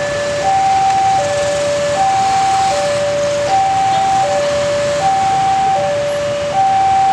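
Railway level-crossing warning alarm sounding a two-tone electronic hi-lo signal, switching between a higher and a lower tone about every three-quarters of a second. It is the crossing's warning that a train is approaching.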